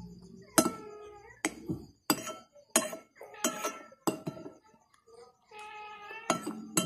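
Metal spoon and fork clinking against a plate as food is scooped up, in sharp strikes every half second or so with a lull about four seconds in, and an animal calling between the clinks.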